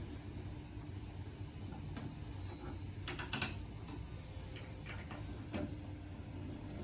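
Scattered light clicks and taps of a hex (Allen) key working the rack's screws, with a cluster of clicks about three seconds in, over a steady low hum.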